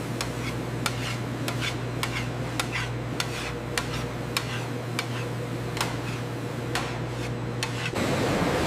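Irregular sharp metallic clinks and ticks over a steady low machine hum, typical of metal tools and equipment being handled on a processing line. About eight seconds in, the sound cuts to a steady rushing noise.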